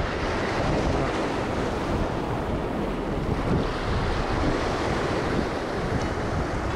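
Sea surf washing and breaking over rocks at the shoreline, a steady rushing noise, with wind buffeting the microphone.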